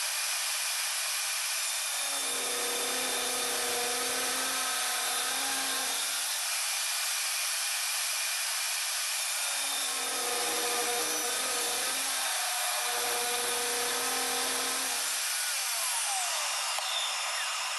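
Table saw running steadily and making three rip cuts through mulberry boards, each lasting two to four seconds. The sound deepens while the blade is in the wood, then returns to the free-running whine between cuts.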